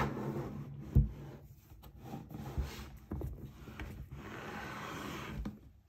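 A cardboard book box being handled: a sharp knock about a second in, a few lighter taps, then a steady rustle of card and paper rubbing as a thin storybook is slid out of the box.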